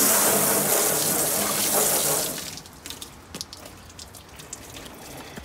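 Garden hose spray nozzle jetting water onto the metal inside a Char-Broil gas grill's firebox, a loud hiss that stops about two seconds in. Scattered faint drips and ticks follow as the water runs off.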